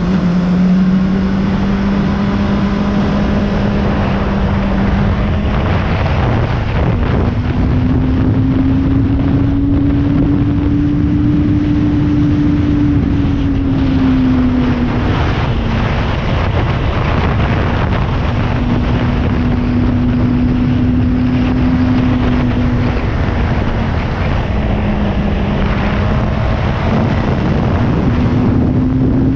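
Motorcycle engine running at a steady cruise, its note rising and falling a little every few seconds with the throttle, under heavy wind noise on the microphone.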